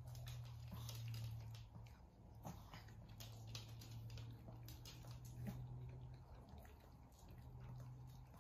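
Faint scattered clicks and taps of a small dog's claws on a wooden floor and a cat nibbling at a treat toy, over a low steady hum that drops out briefly about two seconds in and again near seven seconds.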